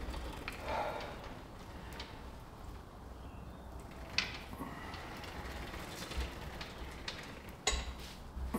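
Nautilus pullover machine working through a slow rep, its metal parts clicking sharply twice, about four seconds in and again near the end. A heavy breath out comes about a second in.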